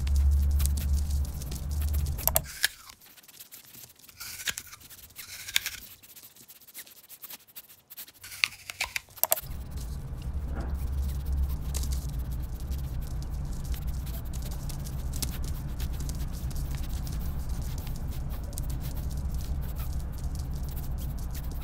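Hedgehogs' feet pattering and scratching on a wooden parquet floor, with scattered sharp clicks in a quieter stretch a few seconds in. Under them runs a steady low hum that drops away for several seconds and then returns.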